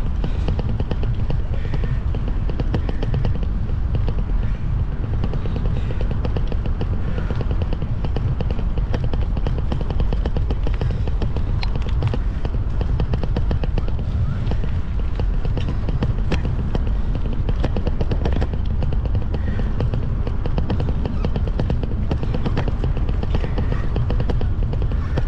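A vehicle engine running steadily under way: a rapid, even pulsing of exhaust beats over a dense low rumble.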